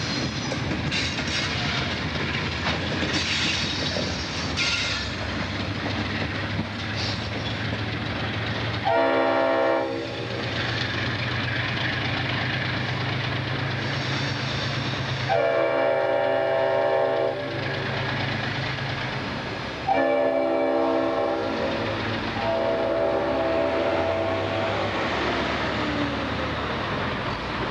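Freight train rolling past with wheels clattering over the rail joints and a steady low diesel rumble. Then the CSX diesel locomotive's air horn sounds four blasts, each about one and a half to two seconds long, the last one fainter.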